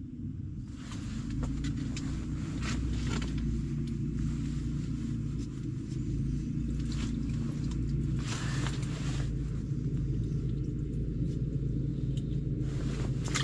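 A steady low engine drone, like a motor running close by, under intermittent rustling and handling noise from clothing and fishing gear.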